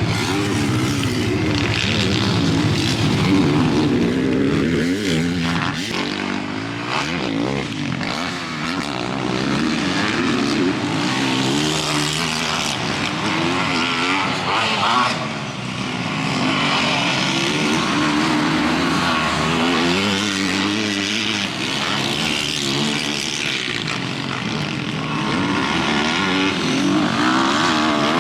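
Motocross bike engine revving hard and falling back again and again, its pitch rising and dropping as the bike is ridden around a dirt track.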